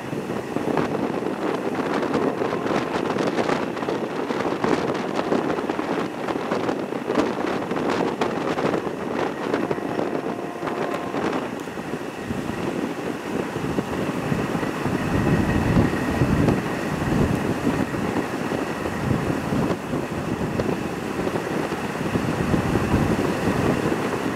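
Passenger train running on the track, heard from inside the carriage: a steady rumble and rattle of the wheels on the rails, with many quick clicks and knocks through the first half.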